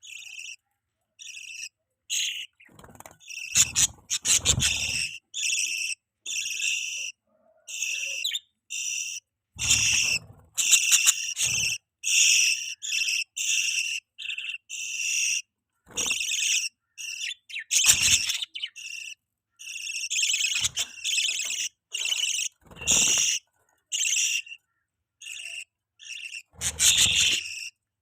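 Budgerigars chirping in a long run of short, high calls with brief gaps between them, mixed with a few dull thumps.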